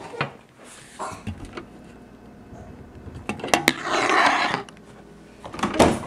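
Plastic clicks and knocks as a GE dishwasher's lower front cover panel is fitted back on, a short scraping rush about four seconds in, then a louder clunk near the end as the dishwasher door is unlatched and pulled open.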